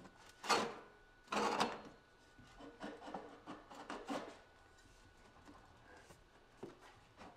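Metal exhaust pipe sections and sleeve clamps scraping as they are slid together and adjusted. Two louder scrapes come in the first two seconds, followed by faint clicks and rubbing.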